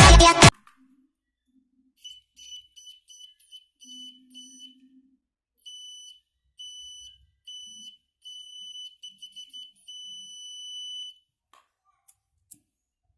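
Homemade battery-powered bicycle horn, a mini electric bell or buzzer fitted in a trumpet funnel, beeping as its push switch is pressed. It gives a single high, steady tone in a run of short quick beeps, then longer beeps, ending in one held beep about a second long.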